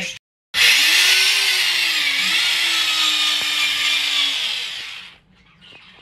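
Electric drill boring into a plastered masonry wall for hook holes. It runs for about four and a half seconds, its motor note wavering slightly under load, then stops.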